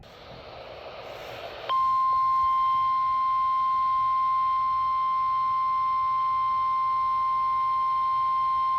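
NOAA Weather Radio warning alarm tone broadcast as part of the weekly alarm test. It is a single steady high tone that comes on sharply about two seconds in, after a short stretch of radio hiss.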